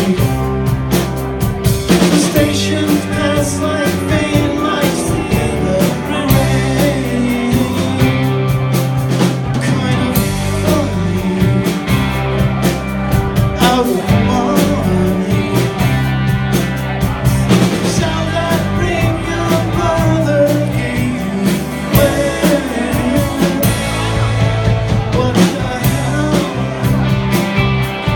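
A live rock band playing a power-pop song on drum kit and acoustic and electric guitars, with some singing.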